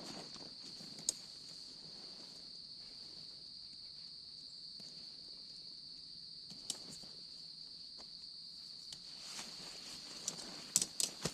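A steady high-pitched cricket chorus throughout, with a few sharp clicks and a quick run of clicks near the end from tent clips being unclipped from the poles.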